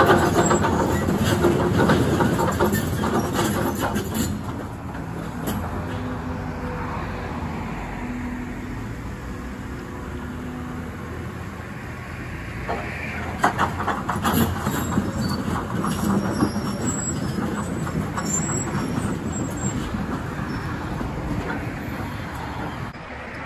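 Caterpillar hydraulic excavator running as it swings and works its arm, its diesel engine under load, with bursts of metallic clanking and rattling during the first few seconds and again about midway.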